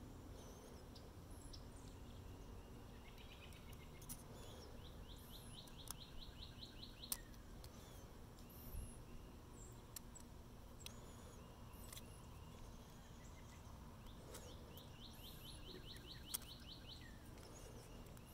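Faint birdsong: scattered high chirps and, twice, a songbird's rapid trill of repeated notes lasting about two seconds. A few light, sharp clicks of small metal parts being handled.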